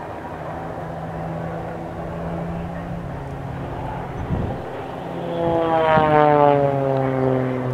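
Extra 300 aerobatic propeller plane droning overhead; about five seconds in one passes close, its engine and propeller note getting louder and falling in pitch as it goes by. A brief low thump comes shortly before the pass.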